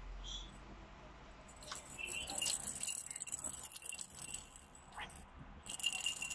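A baby's plastic rattle ball being shaken in her hand, rattling in two spells: one starting about two seconds in, and a shorter one near the end.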